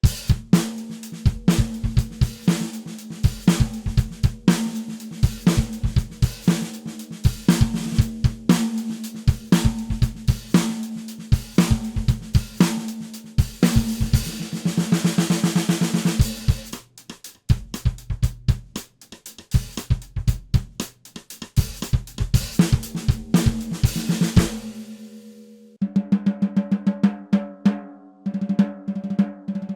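Ludwig 14x6.5 raw brass Phonic snare drum, with a 1.2 mm seamless brass shell and Remo Ambassador heads, played with sticks. Quick strokes ring at a steady pitch, with a sustained roll in the middle. Low thumps sound beneath many of the strokes.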